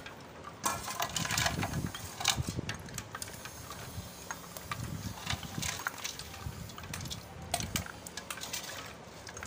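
Ice chunks and a metal ladle knocking and clinking against a large aluminium pot of milk, with a hand rummaging through a tray of ice and water. A dense run of clatter comes in the first few seconds, then scattered clinks.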